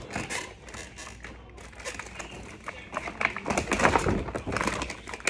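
Rustling and light tapping of packaging and small plastic toys being handled, with many short irregular clicks and scrapes.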